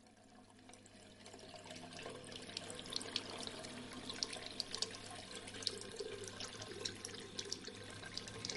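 Tap running into a ceramic wash basin, with water splashing as hands scoop it up to the face. The water sound swells in over the first two seconds, then holds steady with many small splashes.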